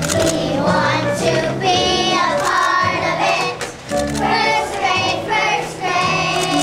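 A group of young children singing a song together in unison over accompanying music.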